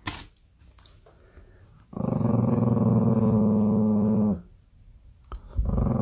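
Small Chihuahua-type dog growling with its teeth bared: one growl of about two and a half seconds starting about two seconds in, and a second starting near the end.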